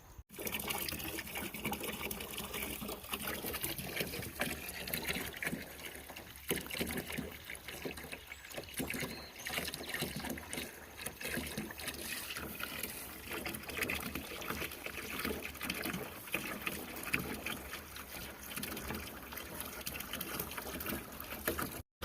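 Running water splashing and trickling steadily.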